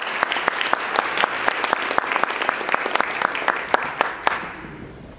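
Audience applauding: many hands clapping at a steady level, then fading out about four seconds in.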